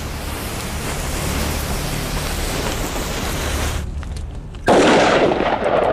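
A steady hiss, then about four and a half seconds in a sudden loud blast lasting about a second: a clay-lined gourd gun bursting apart, its gunpowder not rammed or compacted enough to burn slowly.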